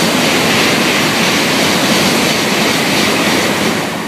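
N700-series Shinkansen passing through the station at high speed on the through track: a loud, steady rush of air and wheel-on-rail noise that starts to fade near the end as the tail car goes by.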